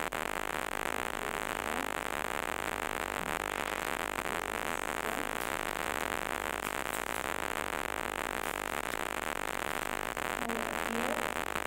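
Steady loud hiss like static, with a low hum beneath it, holding an even level throughout.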